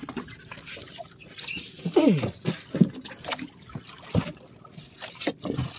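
Water lapping and splashing against the hull of a small outrigger boat, with a few short knocks and brief falling sounds about two seconds in.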